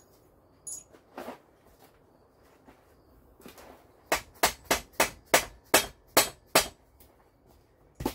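A hammer striking metal at the end of a Model A front axle, where the leaf spring's shackle fits: about eight sharp, quick blows at roughly three a second, starting about four seconds in, after a few light metal clicks.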